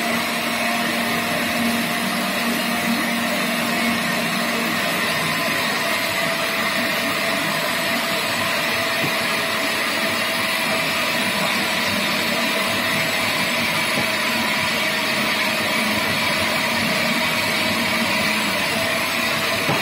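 Vienta Flexie Tritan food processor running steadily, its plastic dough blade kneading flour, water and oil into donut dough. The motor keeps an even hum, with a low tone that fades about five seconds in.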